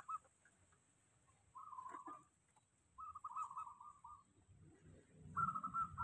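Caged zebra dove (perkutut) cooing faintly in four short, quavering phrases spaced a second or so apart.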